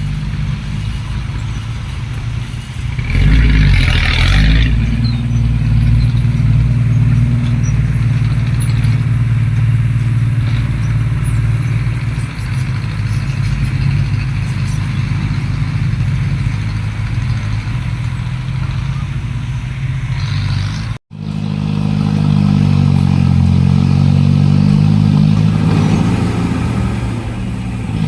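Heavy diesel machinery engine running steadily, with a short noisy burst about three seconds in. The sound drops out for an instant about two-thirds of the way through, then the engine carries on with its pitch shifting.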